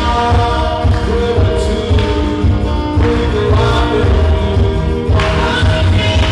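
Live gospel worship music: singing held over a band with a steady bass and drum beat.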